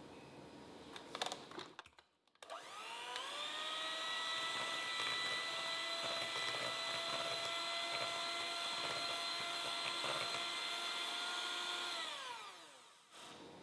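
Philips electric hand mixer beating butter in a glass bowl. A few light clicks come first. About two seconds in the motor starts and its whine rises to speed, runs steady for about nine seconds, then winds down and stops near the end.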